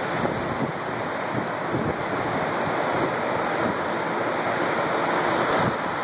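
Steady rush of violent tornado wind, an even noise with no pauses, with gusts buffeting the microphone now and then.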